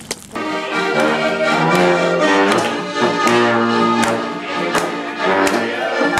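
Accordion playing a tune in held chords, with a sharp click on every beat, about four every three seconds.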